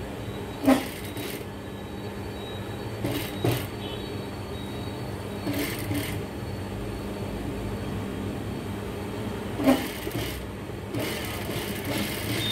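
Industrial sewing machine running with a steady motor hum, broken by several short, louder bursts of noise as the cloth is stitched and handled.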